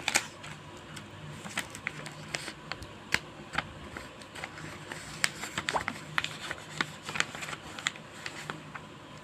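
A package being opened and its contents handled by hand: irregular sharp clicks, taps and crinkles, several a second.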